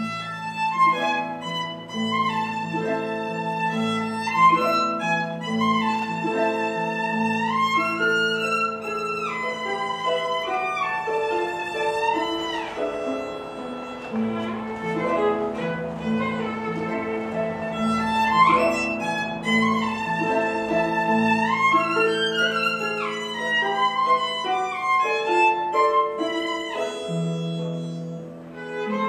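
Violin and concert harp duet in classical style: a bowed violin melody with sliding pitch changes over harp accompaniment.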